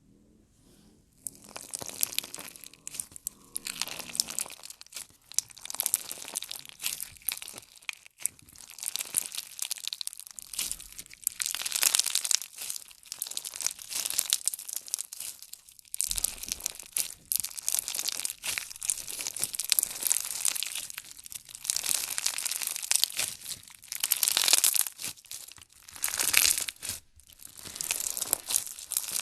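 Slime being squeezed and pressed by hand, giving dense crackling and crunching that swells and fades every second or two, starting about a second in.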